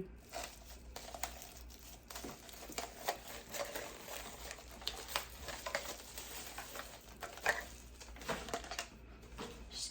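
Scattered light clicks and crinkling of plastic packaging as the bread maker's measuring cup and scoop are unwrapped and handled.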